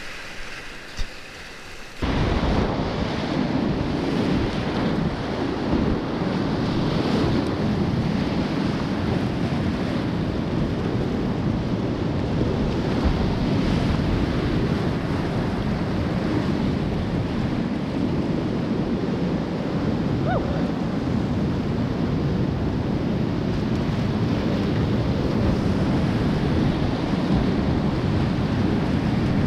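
Whitewater rapids rushing and splashing around a kayak, close on the microphone, with spray and water buffeting it. The roar comes in suddenly about two seconds in and then holds steady.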